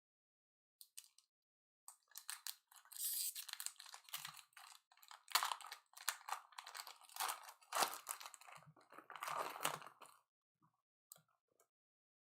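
Crinkling and tearing of a foil trading-card pack wrapper being opened and handled: a dense crackly rustle starting about two seconds in and stopping about ten seconds in, followed by a few light clicks.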